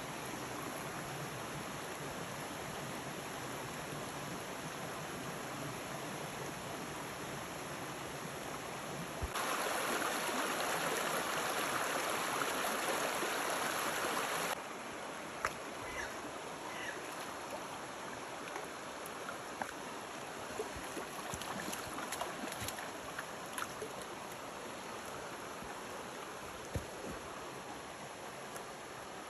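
Mountain stream water rushing steadily. It is louder for about five seconds in the middle, starting and stopping abruptly, and a few faint clicks follow.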